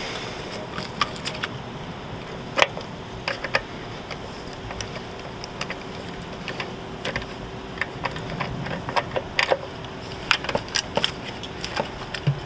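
Hand tools working bolts on a diesel engine's top end: irregular metallic clicks and clinks of a socket ratchet and wrench, some in quick little clusters.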